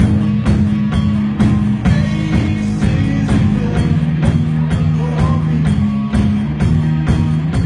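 Live worship band playing: a drum beat of about two hits a second over sustained low notes.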